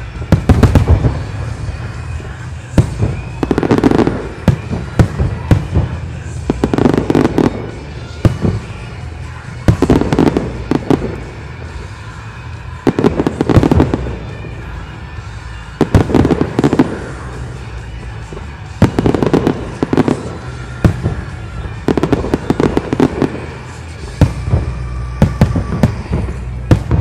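Large professional fireworks display: aerial shells bursting in rapid clusters of sharp bangs and crackle, a new salvo about every three seconds.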